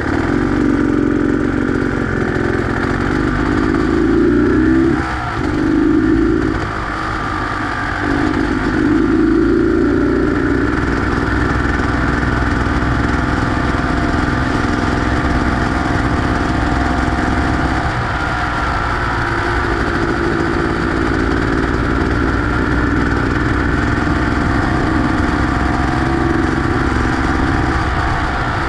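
Beta X-Trainer 250 two-stroke motorcycle engine running under way, its revs rising and falling with the throttle. The engine backs off briefly about 5 seconds in, again around 7 seconds, and once more near 18 seconds.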